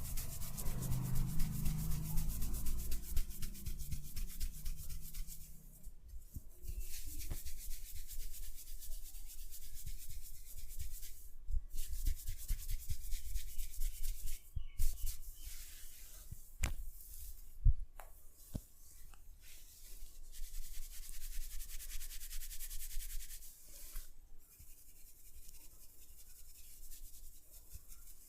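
Head massage: rubbing and scratching over hair and scalp in long strokes broken by brief pauses, with a few sharp taps or clicks about two-thirds of the way in.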